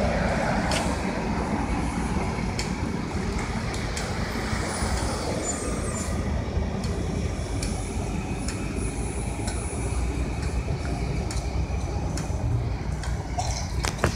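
Gillig BRT hybrid bus with a Cummins ISB 6.7-litre diesel pulling away from a stop, its engine sound fading as it moves off into a steady low rumble.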